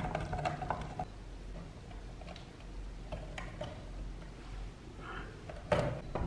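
A few scattered light clicks and taps over a quiet background, with a louder knock near the end.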